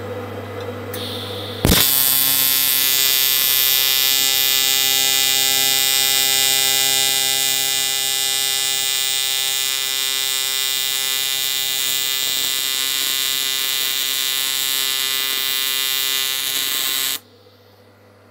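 AC TIG welding arc on an aluminium crankcase casting, from an R-Tech TIG261 inverter set to square wave at 140 Hz. After a brief hiss of shielding-gas pre-flow, the arc strikes with a crack and buzzes at a steady pitch for about fifteen seconds on a heavy, high-amperage run. It then cuts off suddenly, leaving the welder's low hum.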